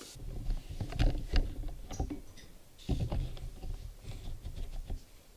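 Soft, irregular thumps and rustling, loudest about a second in and again near three seconds: handling noise from a handheld camera being carried and moved.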